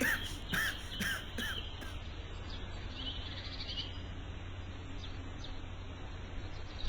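Small birds chirping, a quick run of chirps in the first second and a half, then only a few faint ones, over a steady low hum and background hiss.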